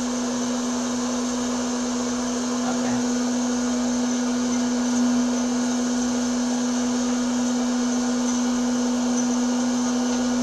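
Electric popcorn maker running: a steady motor hum over an even hiss, with no let-up.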